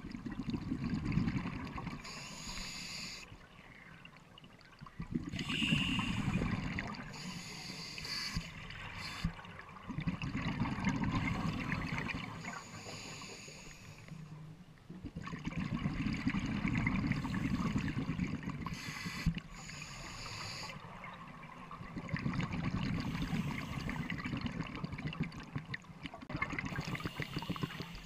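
Scuba breathing through a regulator underwater. A hissing inhale alternates with a rumbling gush of exhaled bubbles, about five breaths in a slow, even rhythm.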